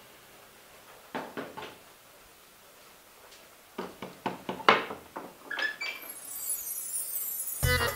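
Knocks on an old wooden plank door about a second in, then the door's latch rattling and the door knocking and clattering as it is unbolted and pulled open, with a short creak near the end of it.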